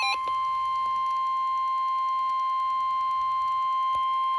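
NOAA Weather Radio 1050 Hz warning alarm tone from a weather radio receiver: one steady, unbroken tone, the signal that a warning broadcast follows. A receiver's alternating alert beeps cut off just as it begins.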